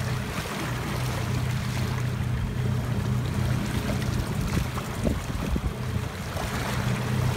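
A boat's engine runs with a steady low hum over water sloshing and splashing at the side as a hooked small tuna thrashes at the surface, with a few light knocks about five seconds in.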